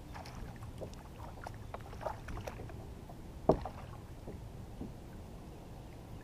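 Scattered light knocks and taps on a kayak hull from handling fish and gear, with one sharp, louder knock about halfway through, over a low steady water and wind background.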